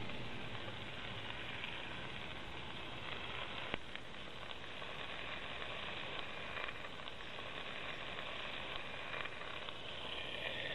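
Raw chicken leg quarters sizzling in a hot cast-iron pot, a steady hiss with scattered crackles. One sharp tap about four seconds in.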